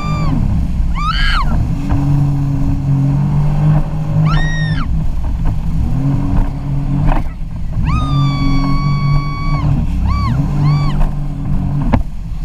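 Jet ski engine running, its pitch stepping up and down with the throttle, with a high whine over it that swells and falls away several times, twice briefly in quick succession near the end.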